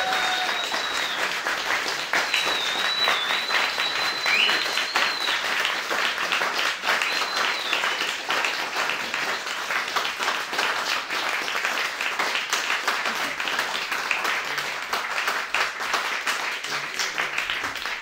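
Audience applauding, a dense, steady patter of many hands clapping, with a few high whistling tones over it in the first half.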